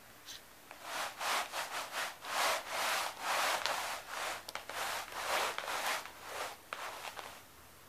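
A cat scratching and rubbing against a carpet: a run of irregular, scratchy strokes, roughly two a second, lasting about six seconds.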